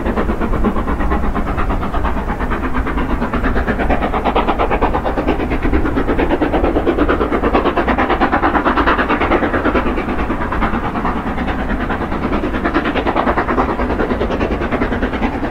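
Steam locomotive hauling a passenger train, working steadily with a rapid, even beat, together with the running noise of the train on the rails.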